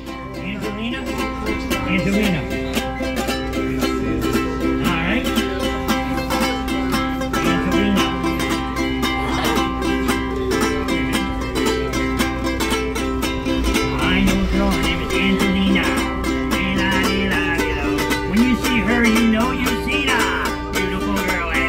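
Ukulele strummed in a quick, steady rhythm, playing chords.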